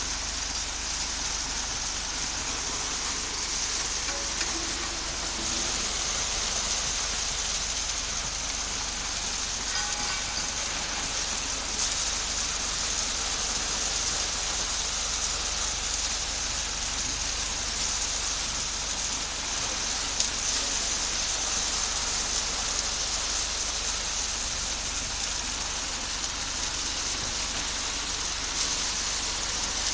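Concrete mixer machine running, a steady rushing noise.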